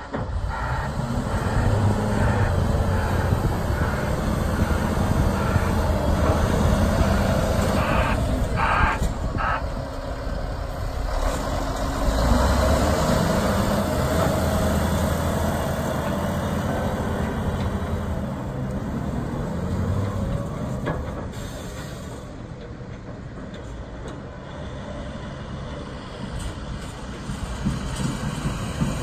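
Volvo A40F articulated dump truck's diesel engine running and revving up and down as the truck drives and works. Two short bursts of noise come about eight to nine seconds in. The engine sound eases for a stretch in the second half, then rises again near the end.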